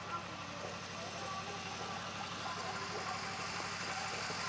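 An engine idling steadily with an even low pulse, and faint voices in the background.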